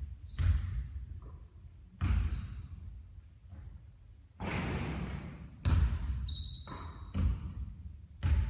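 A basketball bouncing and thudding, about six heavy bounces a second or more apart, each ringing out briefly. Two short high squeaks come between them.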